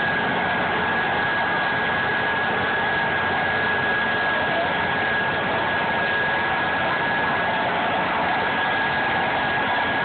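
A motor running steadily: an even, noisy rush with a thin high whine held constant through it.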